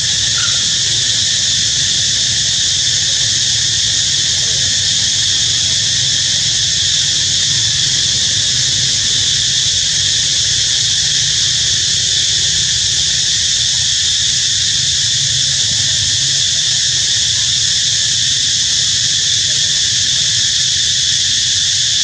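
Loud, steady chorus of insects buzzing in the trees, unbroken throughout, over a low steady hum.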